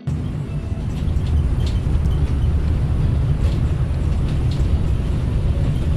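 Steady low rumble of a moving road vehicle, with faint light rattles over it.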